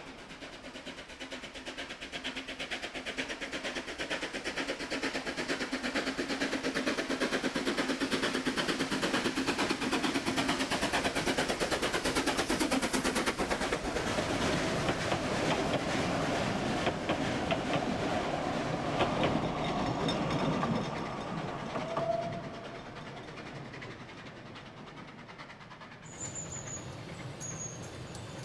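Ffestiniog Railway narrow-gauge steam train passing close by, with a fast, even rhythm of beats and the rattle of its carriages over the track. It swells to its loudest midway and then fades away.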